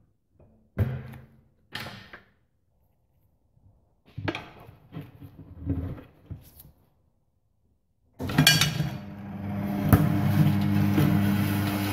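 Steel tyre lever clanking and knocking against a rusty steel wheel rim and the tyre machine's mount head as it is levered under the tyre bead. About eight seconds in, the tyre changer's electric turntable motor starts and runs with a steady hum as the wheel turns to lift the bead over the rim, with one sharp knock a couple of seconds later.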